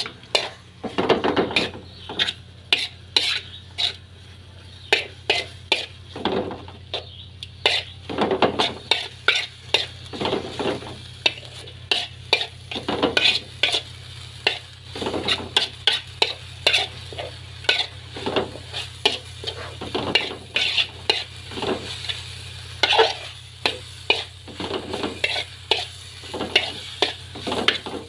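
A spatula scraping and knocking against a metal wok in quick, irregular strokes as instant noodles are stir-fried until dry, with a sizzle of frying underneath.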